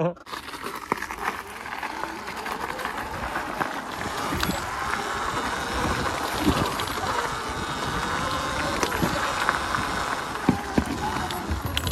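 A Sur-Ron electric dirt bike riding along a gravel trail: a steady rush of tyre and wind noise with scattered clicks of stones and rattles. It builds over the first couple of seconds as the bike gets going.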